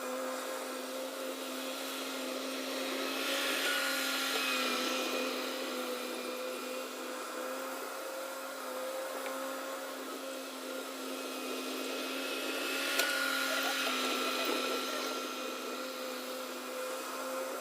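Bobcat skid steer running steadily with a whining drone. It swells louder twice, about three seconds in and again about thirteen seconds in, as it works under load.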